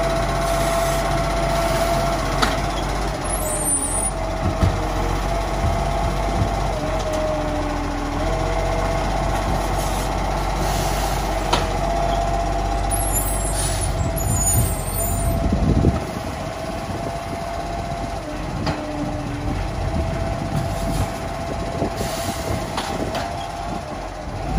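Side-loader garbage truck's diesel engine running while its hydraulic arm works, with a steady whine that starts and stops several times. About two-thirds through comes a short hiss, like an air brake releasing, and the truck then pulls away and gets quieter.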